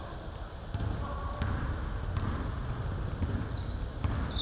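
Basketball dribbled on a wooden gym floor during play: a few dull bounces.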